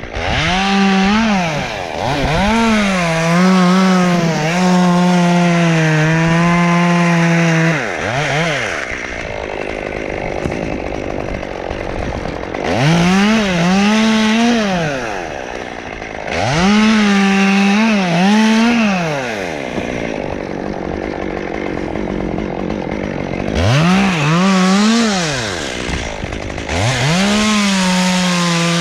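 Chainsaw revving up in about five bursts, probably cutting into the pine, its pitch sagging a little while held at full throttle. Between bursts it drops back to a quieter idle.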